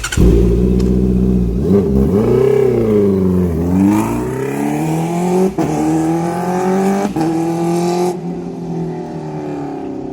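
Honda CBR650R inline-four with an aftermarket Arrow exhaust pulling away and revving hard. The pitch rises, drops, then climbs again with short breaks like upshifts, and the sound fades as the bike moves off near the end.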